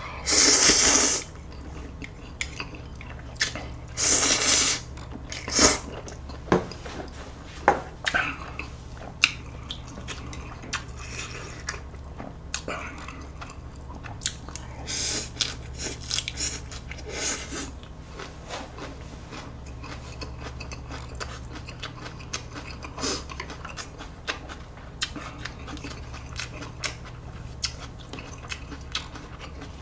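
Loud slurping of Buldak spicy stir-fried ramen noodles, twice near the start, then close-up chewing with scattered soft clicks over a steady low hum.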